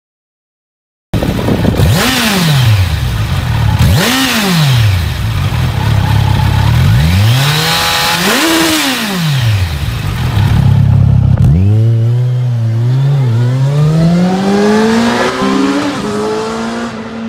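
Kawasaki Versys 1000's inline-four engine through a Yoshimura Alpha slip-on silencer: three quick rev blips, then a long pull with the pitch climbing and briefly dipping twice, before it fades out at the end.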